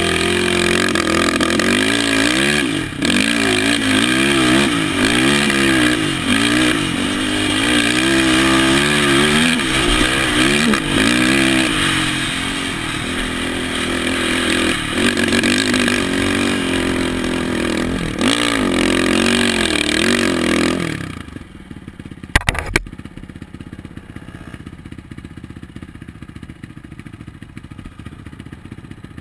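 ATV engine revving up and down repeatedly under load while riding through sand, then about two-thirds of the way in dropping to a low idle. A couple of sharp clicks just after it settles.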